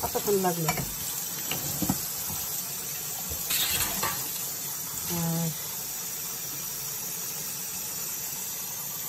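Kitchen tap water running steadily into a stainless-steel sink while glass cups are rinsed and scrubbed, with a few short clinks of glass in the first two seconds and another about five seconds in.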